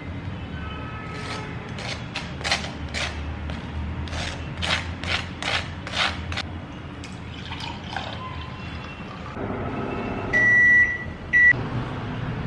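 Kitchen food-preparation sounds: a quick run of light taps and knocks, then an electronic beep, one long high tone and a short second one, near the end.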